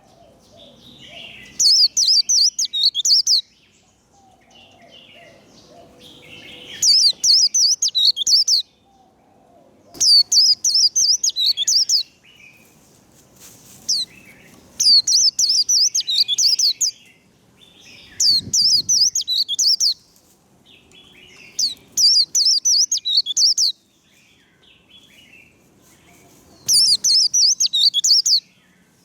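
White-eye (vành khuyên) singing its fast 'líu' competition song in about seven loud bursts of rapid, high, trilled notes, each about two seconds long, with softer twittering between them.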